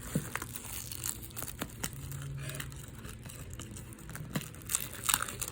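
Plastic shrink wrap being picked at and peeled off a Blu-ray case, with irregular crinkling and crackling snaps that grow louder near the end.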